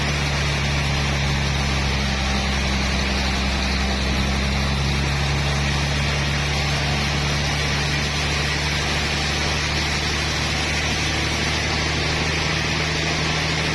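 Sawmill machinery running with a steady, unbroken low engine drone.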